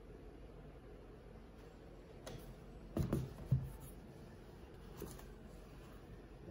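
Notebooks being handled on a desk: a few soft knocks and paper rustles as a hardcover journal is put down and opened, the clearest knocks about three seconds in, over quiet room tone.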